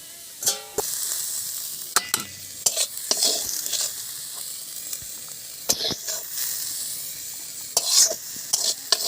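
Leafy greens sizzling in hot mustard oil in a kadai, with a steady hiss and a spatula scraping and knocking against the pan several times.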